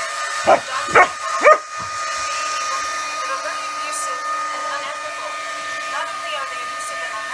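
Hair dryer running steadily with a fixed whine. A dog barks three times, about half a second apart, early in the sound.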